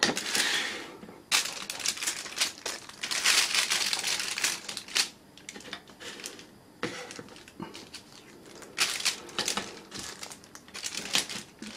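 Clear plastic packaging bags crinkling as antennas are handled and laid out on a table, with light knocks of the plastic parts. The crinkling comes in spells, heaviest from about a second in to five seconds and again shortly before the end.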